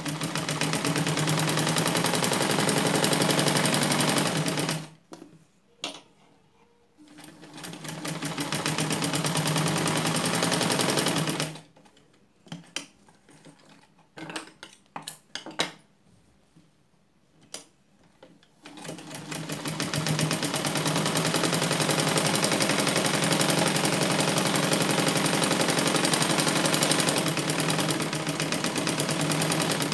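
Black domestic sewing machine stitching a seam in three runs of rapid, even needle strokes. The last run is the longest and fills the final third. Between the runs come a few short clicks.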